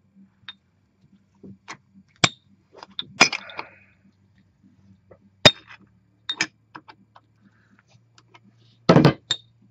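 Metal gauge wrench clinking and scraping against the pressure gauge and regulator body of a paintball HPA tank while the gauge is being unscrewed. Irregular single clicks, a short scrape about three seconds in, and a louder clatter near the end.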